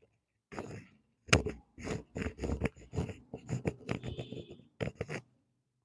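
A quick run of short knocks and cracks, about four or five a second, from hands working on a patient's body during a chiropractic adjustment, after a brief soft rustle.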